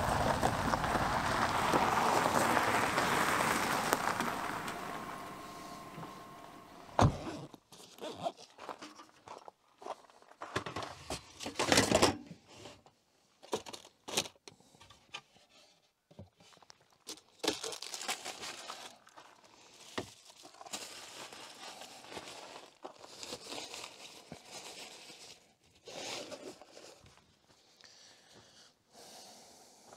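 A steady noise fades away over the first six seconds. Then come intermittent rustling and crinkling of things being handled, with scattered clicks and knocks. Two sharp knocks, about seven and twelve seconds in, are the loudest sounds.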